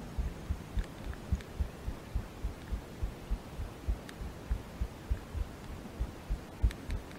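Dull low thuds repeating evenly about three times a second, over a faint hiss with a few light clicks.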